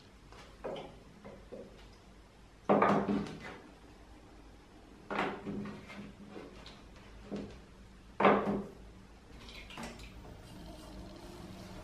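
Hand-handling noises at a potter's wheel with a ball of clay on the wheel head: three short knocks about two and a half seconds apart among smaller taps. A faint steady hum comes in near the end as the electric wheel starts up.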